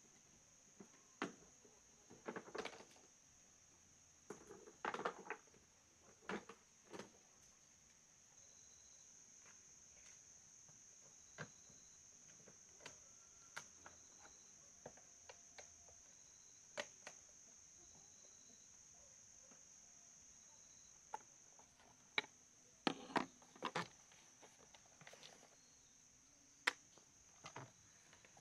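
Sparse clicks, knocks and light clatter of hand tools and hard plastic and metal fan parts being handled: a toolbox opened, then an electric fan's motor housing taken out and turned over. Under them runs a steady high drone of insects.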